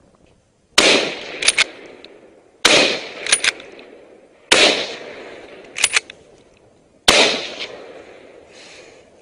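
Scoped hunting rifle fired four times in quick succession, about two seconds apart, each loud shot with a decaying tail. After each of the first three shots comes a pair of short sharp cracks under a second later.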